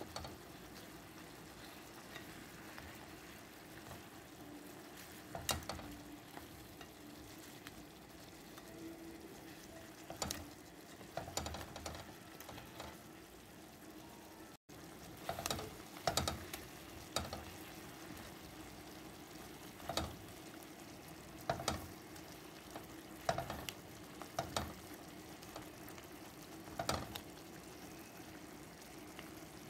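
Marinated chicken pieces sizzling as they sear in hot oil in a pan. A spatula scrapes and knocks against the pan every second or two as the pieces are stirred and turned, more often in the second half.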